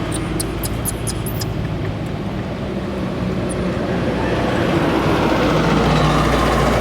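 A motor engine running steadily, with a few short, high squeaks in the first second and a half.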